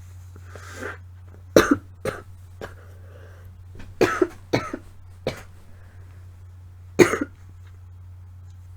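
A woman with a cold coughing in short, sharp bursts: a pair about a second and a half in, a quick cluster around four seconds, and a last one near seven seconds.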